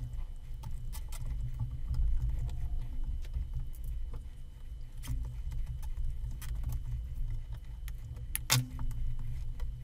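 Wires being handled and bundled with nylon zip ties inside a metal amplifier chassis: scattered small clicks and rustles over a low handling rumble, with a sharper click near the end.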